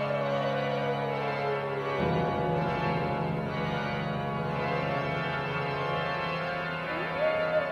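Eerie horror-style organ music: a sustained chord under a high gliding tone that slides slowly down in pitch. The low notes change about two seconds in, and near the end the gliding tone rises again.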